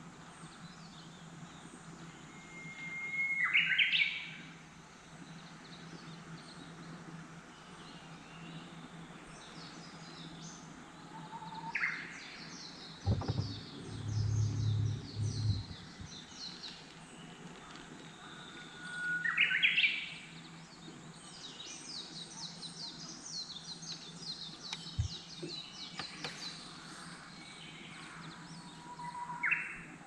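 Japanese bush warbler (uguisu) singing its hoo-hokekyo song four times, each a long held whistle followed by a quick rising flourish, with smaller birds chirping higher in the background. A low thump and rumble comes about halfway.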